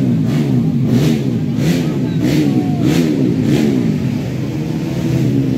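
Several grasstrack racing motorcycle engines revving, their pitches rising and falling and overlapping.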